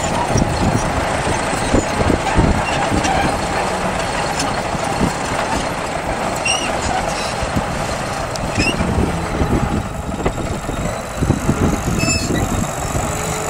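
Wind buffeting the microphone: a steady rough rumble, with a few short bird chirps.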